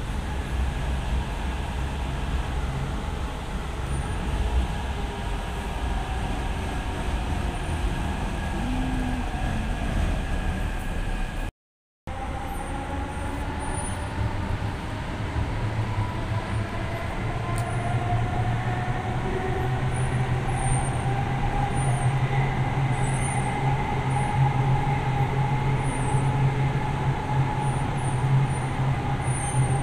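Hyderabad Metro train running on its elevated track, heard from inside the carriage: a steady rumble and low hum with a faint motor whine that rises gently in pitch. The sound drops out briefly just before the middle.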